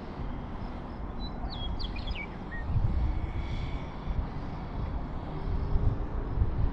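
Wind buffeting the microphone in uneven gusts, with a bird chirping a short run of notes that step down in pitch about a second in.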